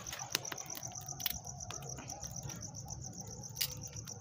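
Crickets chirping in a steady, evenly pulsing high trill, with a few sharp cracks scattered through it from a wood fire burning in a clay stove.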